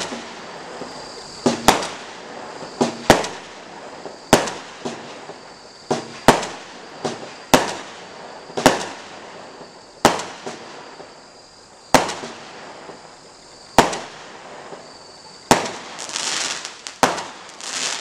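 Electric Storm 12-shot consumer firework cake firing: sharp bangs about one to two seconds apart, each followed by crackling and fizzing from the bursting stars. The crackle grows denser near the end.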